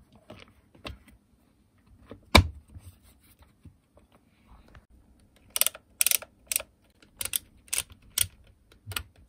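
Speed-control dial of a Makita 9227C polisher clicking through its detent positions as it is turned by thumb, about two clicks a second from halfway through. The clicks come from the spring-loaded detent piece riding in the notches under the wheel, refitted after being left out, so the dial now clicks as it should. One sharp snap comes a couple of seconds in.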